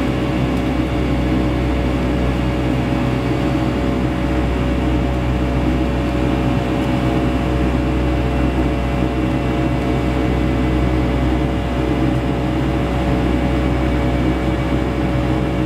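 Cabin noise of a Boeing 757-200 in its climb after takeoff, heard from a window seat beside the engine: a steady jet-engine drone and rush of air with a deep hum and a few held tones.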